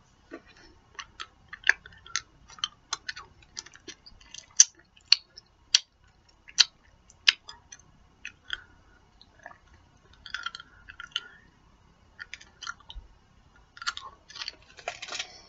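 A person chewing a sticky, chewy candy close to the microphone: a string of short wet clicks and smacks, irregular, with a few brief pauses.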